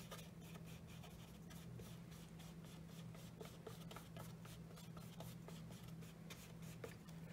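Flat watercolor brush stroking and dabbing on wet watercolor paper: faint, quick, short strokes repeating several times a second over a steady low hum.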